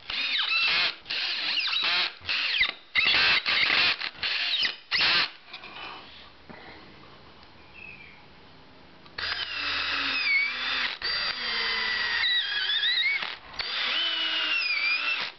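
Cordless drill driving screws into wood and MDF: several short bursts of motor whine in the first five seconds, then two longer runs of a few seconds near the end, the whine dipping and recovering under load.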